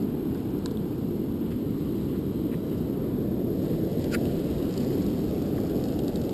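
Steady noisy rumble of breaking surf and wind on the microphone, with a few faint sharp clicks.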